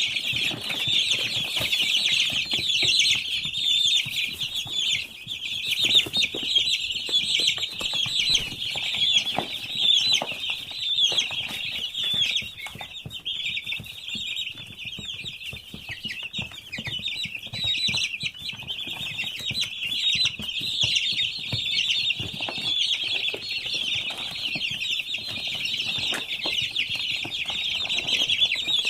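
A large flock of week-old poultry chicks peeping continuously, many high chirps overlapping into one steady chorus, with scattered taps and rustles among them.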